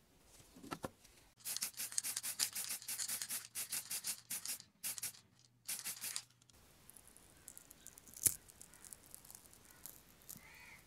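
Rapid rubbing strokes on a small model car part, many a second, for about five seconds with two brief pauses, then one sharp click later on.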